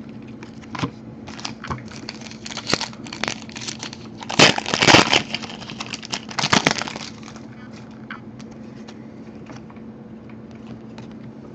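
Trading cards and their plastic wrappers being handled: a run of rustles, crinkles and small clicks, loudest in a burst around the middle, then dying down to a few faint ticks.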